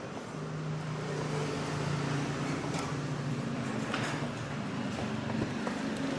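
A motor vehicle's engine running steadily, a low hum with overtones that comes in about half a second in. A couple of light clicks sound over it.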